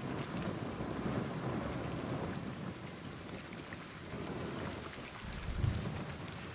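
Strong wind buffeting the microphone, a steady rumbling rush with a louder gust about five and a half seconds in.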